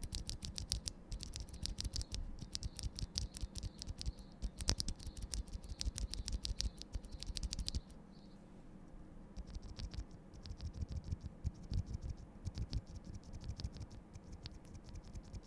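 Noir Rose linear mechanical key switches being pressed over and over in quick clicks. The first run, about eight seconds, is the switches unlubed. After a short pause a second, somewhat quieter run follows, the same switches lubed with Krytox 205G0.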